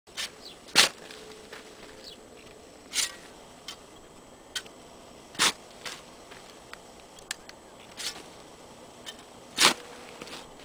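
Steel shovel blade being driven into dry dirt: five sharp scraping strikes about every two to three seconds, with smaller clicks and scrapes of dirt between.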